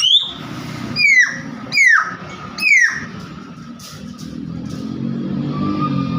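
Nias hill myna giving four loud, sharp whistles in quick succession, each sliding down in pitch. A low engine rumble swells up in the background from about four seconds in.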